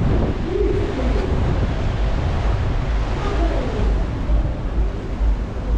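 Wind buffeting the microphone on the open deck of a moving cruise ship, a gusty low rumble over a steady rush of sea and wake.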